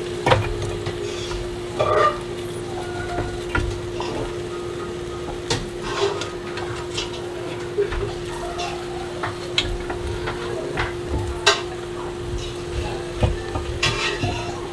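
Metal fork and spatula clicking and scraping against the grill plate of a Ninja Foodi XL grill as pork ribs are turned over, with faint sizzling and a steady hum underneath.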